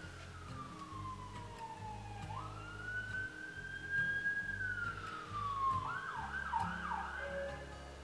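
Emergency vehicle siren in the street, wailing with slow falls and rises in pitch, then switching to a faster yelp about six seconds in.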